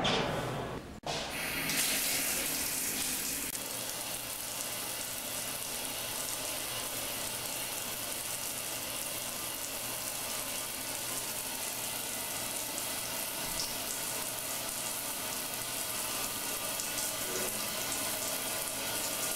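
Shower water running steadily, spattering onto a hard floor around a drain, starting about a second in after a brief cut.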